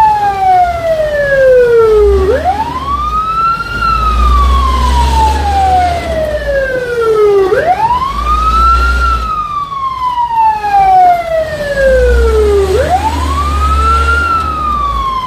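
Fire truck siren in a slow wail: each cycle a quick rise, then a long falling tone, repeating about every five seconds. Heard from inside the cab, with a low engine rumble underneath that comes and goes.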